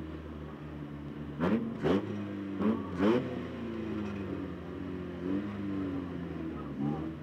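Banger racing car's engine running, heard from inside the cabin, with short sharp revs: two quick pairs about one and a half to three seconds in and one more near the end.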